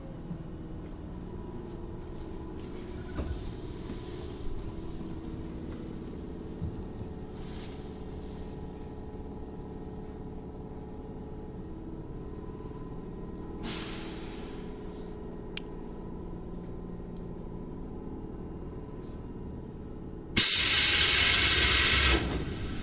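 Tobu 8000 series resistor-controlled electric train at the end of its run: a steady hum from the car with a short hiss and a click, then a loud blast of compressed air lasting about two seconds near the end.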